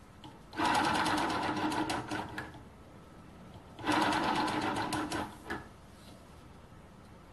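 Small home-built gamma Stirling engine with a flywheel spun by hand, turning over twice with a fast mechanical clatter that fades out after about two seconds each time. It slows and stops rather than keep running, which the builder suspects is side thrust on the bearings.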